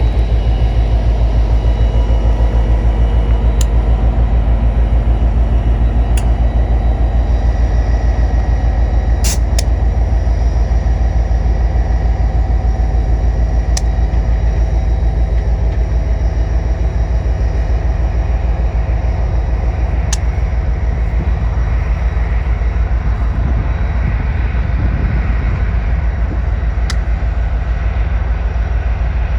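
Union Pacific tie train rolling past with a steady, loud low rumble, a few sharp clicks scattered through it.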